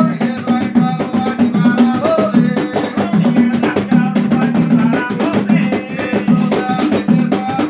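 Two djembe hand drums played with bare hands in a steady, driving rhythm, with men's voices singing over the drumming.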